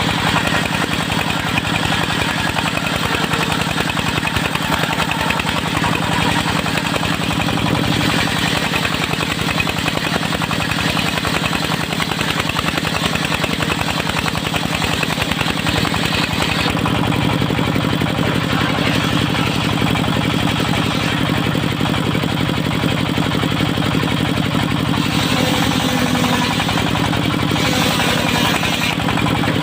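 Engine of a portable circular-saw mill running steadily, with a constant hum and a broad rattling noise that shifts a few times.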